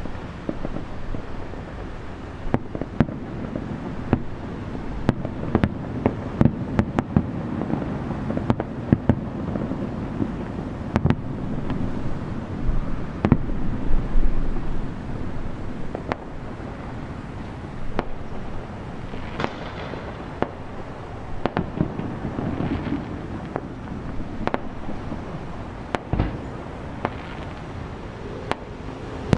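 Aerial fireworks shells bursting in a dense, irregular run of sharp bangs over a continuous low rumble of more distant bursts.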